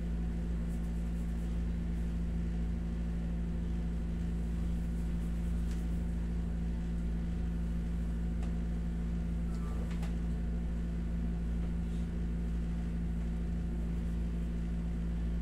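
Window-type air conditioner running: a steady hum with a low rumble.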